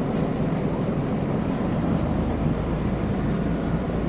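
Ferry underway, heard from on board: a steady low rumble of its engines mixed with wind and water noise.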